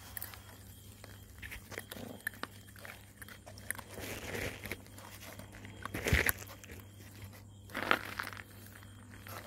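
Puppies chewing and crunching on food: scattered small crunches and clicks, with a few louder scuffs about four, six and eight seconds in, the loudest near six seconds.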